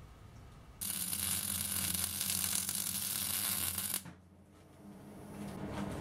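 Electric arc welding on steel: a loud crackling sizzle with a steady electrical hum under it for about three seconds, cutting off suddenly as the arc is broken. After a short lull a quieter steady hum comes back near the end.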